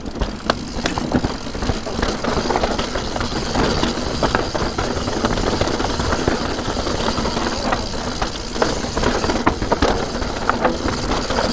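Santa Cruz Nomad 4 full-suspension mountain bike clattering down a rough, stony trail: tyres crunching over loose rocks, with a continuous rattle and many sharp knocks from the bike.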